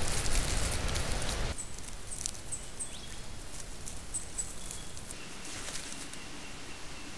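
A lyrebird stepping and scratching through dry leaf litter close to the microphone: a loud rustling crackle that cuts off about a second and a half in. Then quieter bush ambience with a few faint, high bird chirps, and from about five seconds a steady, high, thin tone.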